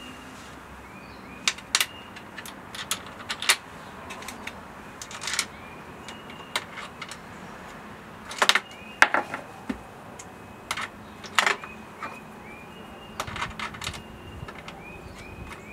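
Irregular metallic clicks and clinks of bolts and aluminum router-table fence parts being handled and fitted together, with short high squeaks between them.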